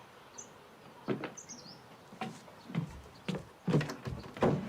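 A few faint bird chirps over outdoor ambience, then a series of irregular knocks and clatters, like a wooden door being handled and footsteps.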